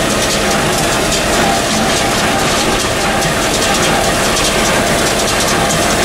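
John Deere 6300 tractor's diesel engine running steadily as it pulls and drives a John Deere 328 small square baler, with the baler's pickup and plunger clattering in a steady rhythm while it bales hay.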